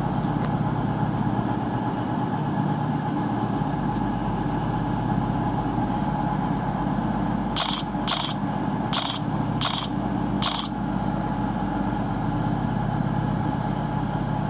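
CrossCountry Class 220 Voyager diesel multiple unit standing at the platform, its underfloor Cummins diesel engines idling steadily. About halfway through, five short high-pitched sounds come in quick succession over the engine hum.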